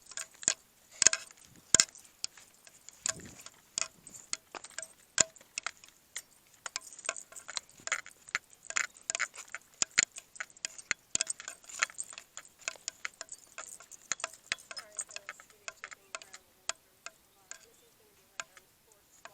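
A rapid, irregular patter of small sharp clicks and taps, several a second, thinning out a little near the end.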